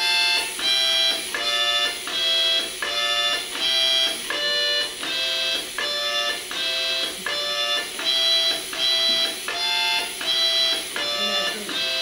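Harmonica played by an automatic, solenoid-valve-driven harmonica player running through a pre-programmed tune: short reedy notes, about two a second, with brief gaps between them.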